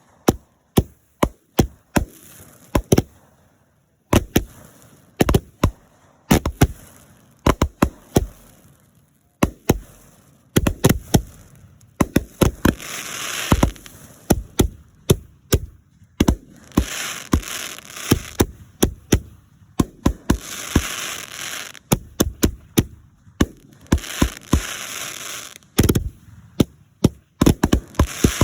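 Fireworks bursting overhead: a rapid, irregular run of loud sharp bangs, with several stretches of dense crackling between them.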